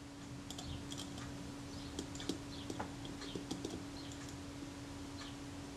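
Faint, scattered light clicks and taps of metal tweezers working small parts in a Rolleiflex Automat TLR's exposed mechanism, most of them between about two and four seconds in, over a steady low hum.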